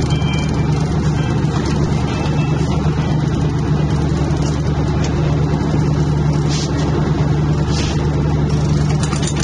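A 52-foot Merritt fishing yacht's engines running steadily at raised throttle with a low, even drone.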